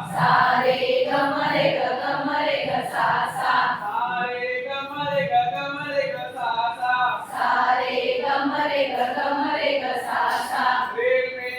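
A group of voices singing a Hindi action song together in unison, steadily throughout.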